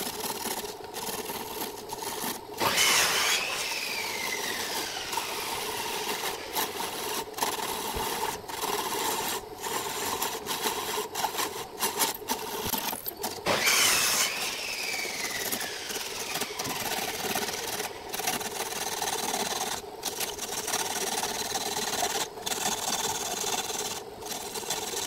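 Wood lathe running with a turning tool cutting a large spinning blank of tree-base wood: a steady motor hum under continuous scraping of the cut. Twice, about 3 and 13 seconds in, the cut gets louder and is followed by a whine that falls in pitch over about two seconds.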